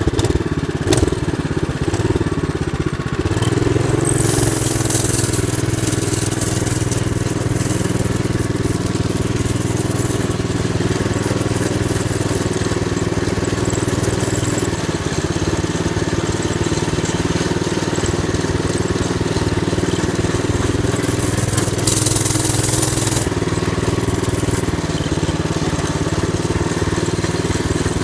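Mini bike's small engine running steadily while it is ridden, with stretches of hiss a few seconds in and again after about twenty seconds.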